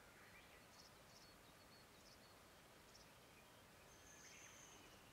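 Near silence: faint outdoor hiss with a few faint, high bird chirps and one short, steady high whistle about four seconds in.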